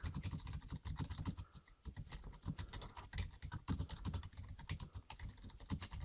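Typing on a Rii RK100 raised-key membrane keyboard: a fast, uneven stream of key clicks, with a brief pause about two seconds in.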